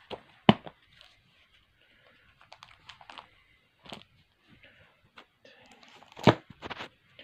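Bagged comic books being handled and set down: plastic sleeves crinkling with a few sharp knocks, the loudest about half a second in and again just past six seconds.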